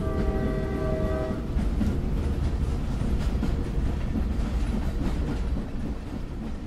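A train horn sounds one steady blast for about a second and a half, followed by the rumble of a moving train that fades near the end.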